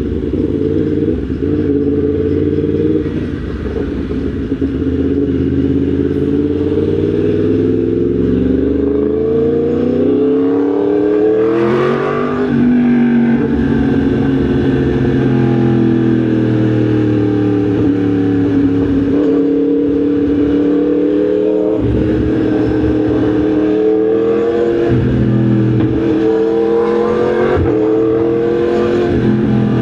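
Yamaha MT-10 SP's crossplane inline-four engine under way, the revs climbing steadily for several seconds, then dropping sharply about twelve seconds in, and afterwards rising and easing off again in gentler swells.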